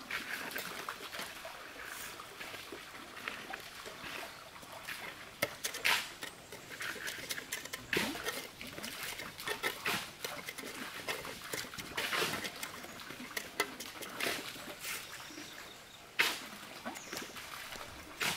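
Hand trowel scraping and patting wet cement mortar out of a bucket, an irregular run of short scrapes and sharp knocks.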